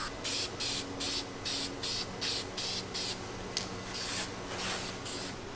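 Aerosol spray-paint can being sprayed in a rapid series of short hissing bursts, about three a second, with one longer burst about four seconds in.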